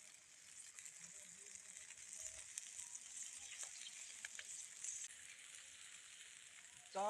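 Food frying in hot oil: a faint, steady sizzle with scattered small crackles.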